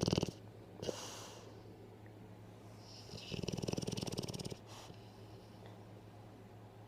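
A sleeping pet snoring. A buzzy snore trails off just after the start, a short breath comes about a second in, and one longer snore comes in the middle. A faint steady low hum runs underneath.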